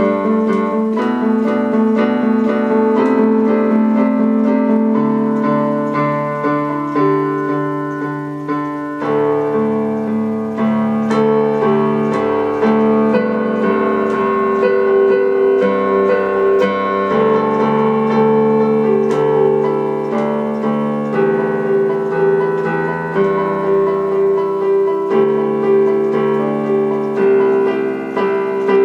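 Piano music: a steady run of repeated chords and melody notes.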